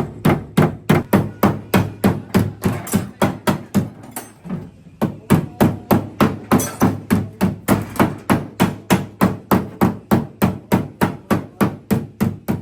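A hammer beating a car body panel, steady rapid blows at about three to four a second, with a short pause about four seconds in: denting work to straighten damaged sheet metal.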